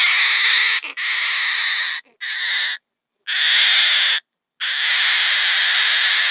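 Cockatoo screeching: a string of harsh, raspy screeches, each about half a second to a second long, with short pauses between them.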